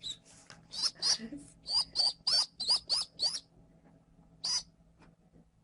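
Baby pigeon (squab) peeping: a rapid run of about a dozen short, high squeaky calls over roughly three seconds, then one more after a pause.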